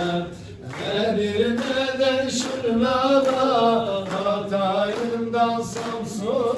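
Several men singing a Turkish folk song (türkü) together, in long sung lines that rise and fall, with a brief pause for breath about half a second in.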